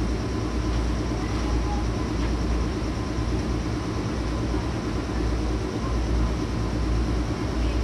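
JR West 105 series electric train running: a steady rumble of motors and wheels on the rails, heard from inside the car.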